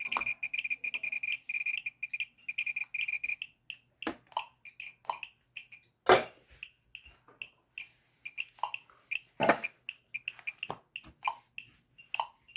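Geiger-counter dosimeter sounding: a rapid run of high-pitched beeps for about the first three and a half seconds, then irregular sharp clicks and short beeps at two pitches, the loudest click about six seconds in.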